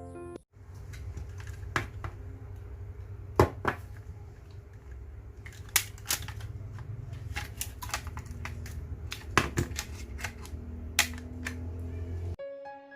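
Sharp, irregular clicks and taps of small tools against a phone's plastic and glass parts as it is taken apart, over a steady low hum.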